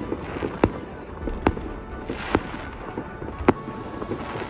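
Fireworks display: aerial shells bursting, four sharp bangs about a second apart with smaller pops and crackles between them.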